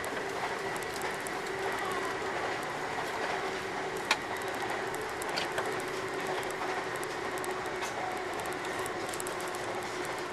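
Passenger train running, heard from inside the car: a steady rolling noise with a faint steady hum, broken by a few sharp clicks, the loudest about four seconds in.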